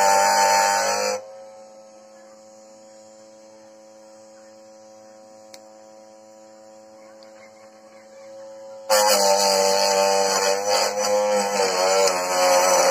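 Small DC motor spinning a cutting blade, with a steady pitched whine throughout. It is loud and rough while a green chilli is fed into the blade for about the first second and again from about 9 s in, and quiet and smooth while the blade spins free in between.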